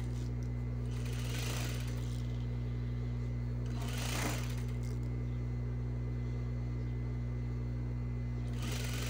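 Industrial sewing machine stitching elastic onto knit fabric, its motor humming steadily, with louder stretches of stitching about a second and a half in and again about four seconds in.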